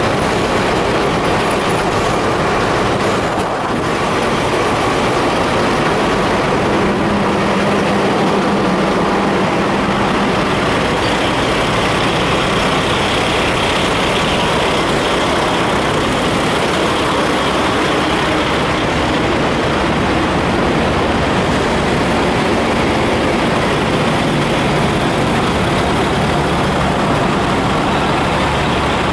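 Steady, loud drone of idling semi trucks' diesel engines, with faint steady engine tones running through it.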